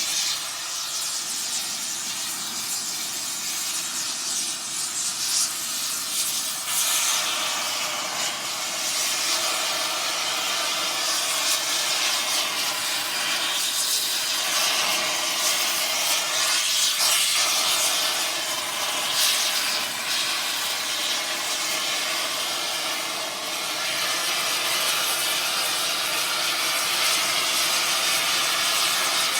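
Air torch working on metal: a steady hiss with slight swells and faint crackle.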